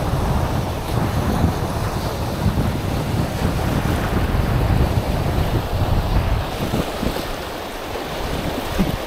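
Wind buffeting the microphone in gusts, a heavy low rumble over the wash of surf breaking on the shore.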